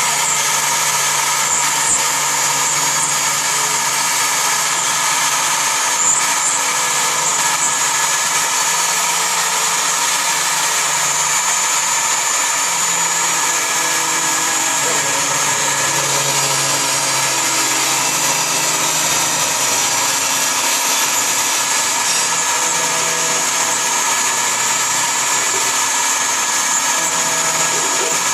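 CNC milling machine running steadily, its high-speed spindle giving a continuous whine with several high tones over a machining hiss.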